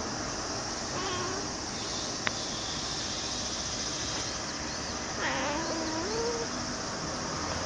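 White cat meowing twice: a short, faint meow about a second in, then a longer meow around five seconds in whose pitch rises near its end. A single sharp click comes between the two, over a steady background hiss.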